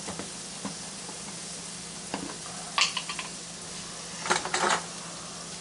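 Ham sizzling steadily on a hot griddle, with sharp clinks and clatters of kitchen utensils against dishes about three seconds in and again as a quick cluster near the end.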